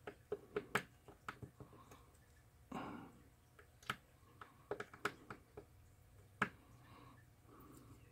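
Faint, irregular small clicks and taps from hand soldering on a small circuit board, as the iron tip and solder wire touch the pads and the board shifts on the bench. A brief soft hiss about three seconds in.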